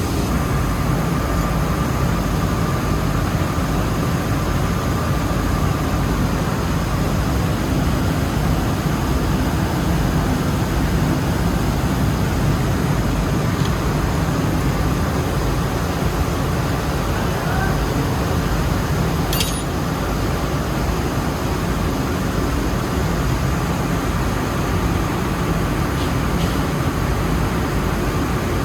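Steady, loud mechanical din of rice-mill machinery running, a continuous low-heavy noise. A faint steady whine sits in it over the first few seconds, and there are a couple of small clicks about two-thirds of the way in.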